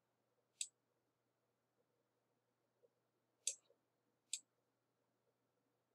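Three computer mouse clicks against near silence: one about half a second in, then two more a second apart near the middle.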